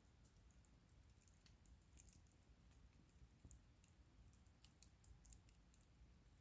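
Faint crackling of a wood bonfire: scattered small sharp pops and snaps at irregular intervals over a low rumble, with one louder pop about three and a half seconds in.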